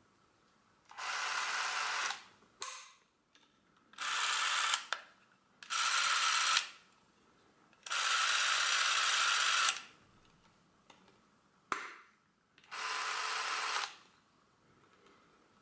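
Bauer Mini S Super 8 movie camera's motor running in five short bursts, each about one to two seconds long, a steady whir that starts and stops sharply; the longest run is about two seconds, near the middle. Two short clicks fall between the runs.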